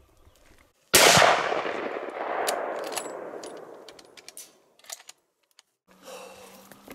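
A single shot from a .243 Tikka T3 Lite bolt-action hunting rifle about a second in, its report rolling away over about three seconds. A few sharp small clicks follow.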